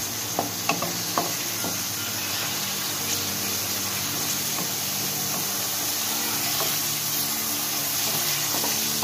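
Chicken pieces sizzling in hot oil in a kadai, frying until the meat turns white, with a few sharp knocks of the stirring spoon against the pan in the first second or so.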